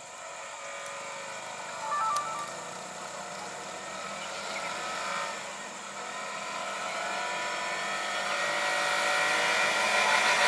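Cars and a motorcycle passing slowly on a road, their engines growing steadily louder toward the end as a vehicle approaches. A brief two-tone beep about two seconds in.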